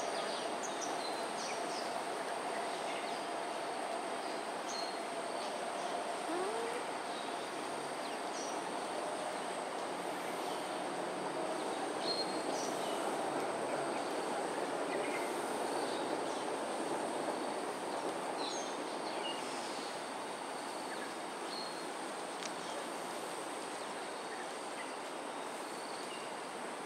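Steady hum of distant road traffic, with short high bird chirps scattered throughout.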